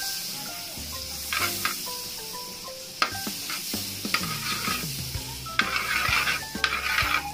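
Oil sizzling in a wok while a metal spatula stirs and scrapes against the pan, with sharp clinks of the spatula on the metal. The sizzling and scraping grow louder in the last couple of seconds.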